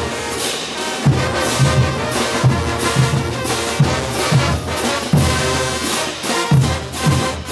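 Bolivian street brass band playing a morenada: trumpets and trombones over sousaphones, with hand cymbals clashing and bass drums beating on the beat.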